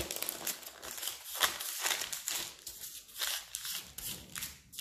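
Baking parchment paper crinkling and rustling as it is peeled back off a rolled dough log, in a run of short crackles that thins out near the end.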